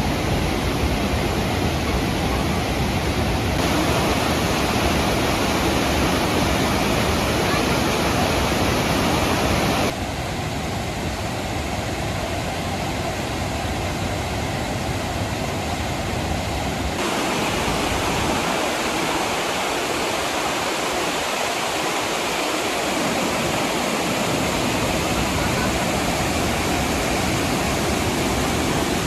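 Waterfall pouring down a rock face, a steady rush of falling water, full with spring snowmelt. The sound shifts in level and tone abruptly three times, as the footage cuts between shots.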